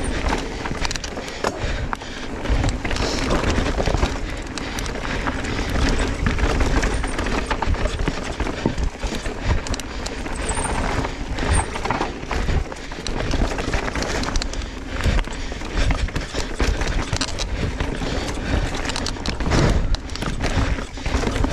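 Mountain bike ridden down a dirt trail: a constant rough tyre-and-trail noise with frequent clattering knocks from the bike and a heavy low rumble.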